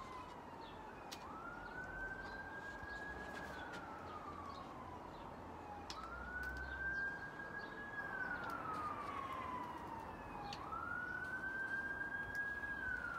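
A siren wailing in slow cycles, about three times. Each cycle is a quick rise to a held high note, then a long slow fall.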